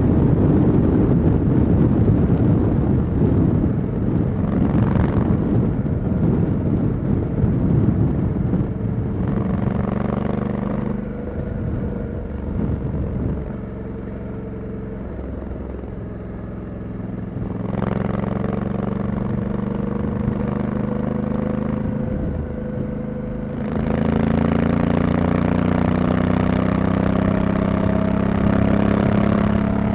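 Honda Africa Twin 1100 DCT motorcycle's parallel-twin engine under way, with heavy wind noise at speed for the first several seconds. Then the engine's note comes through clearly. It eases off and runs quieter through the middle, picks up again, and pulls with a steady, gently rising tone near the end.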